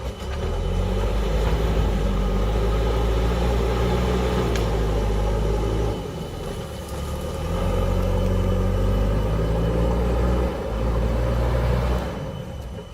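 JCB backhoe loader's diesel engine running steadily under load. It eases off briefly about six seconds in, again near ten seconds and again near the end.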